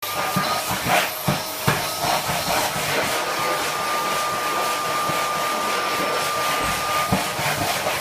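Vacuum cleaner motor running steadily with a high whine, and a few knocks as the nozzle bumps along the floor; the whine drops out about seven seconds in.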